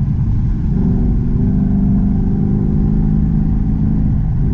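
V8 performance car engine pulling hard at track speed, heard from inside the cabin over a heavy road rumble. Its pitch climbs slowly, then drops briefly near the end and picks up again.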